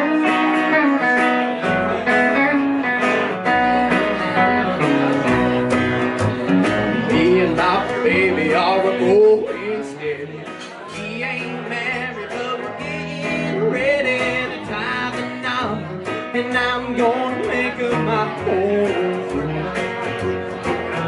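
Live country band with electric guitar, acoustic guitar and upright bass playing a song, the bass stepping through low notes, with a man singing over it.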